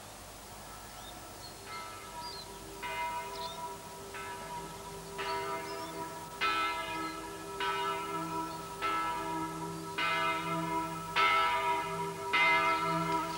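Church bells ringing, a stroke a little over once a second with the tones ringing on between strokes, growing louder from the first stroke a couple of seconds in.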